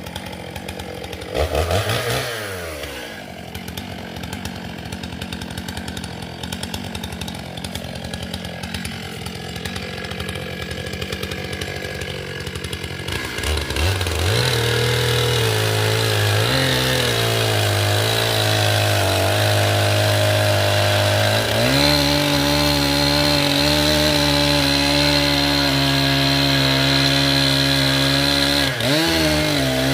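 Chainsaw idling with one quick rev about a second and a half in. From about 13 seconds in it runs at high speed, steady and loud, sawing into a large pine trunk, with brief dips in pitch twice near the end.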